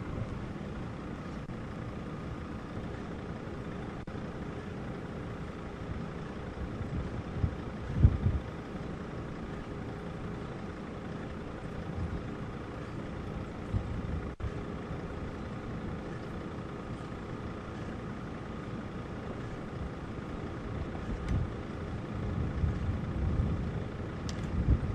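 Wind buffeting the microphone in gusts, with the loudest gust about eight seconds in and more near the end, over a steady low rumble.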